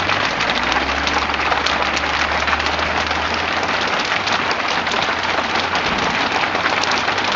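Hail coming down hard: a dense, steady patter of countless small strikes on hard surfaces.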